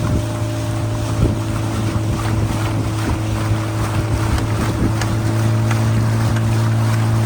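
Motorboat engine running at a steady speed, an even drone, with wind buffeting the microphone.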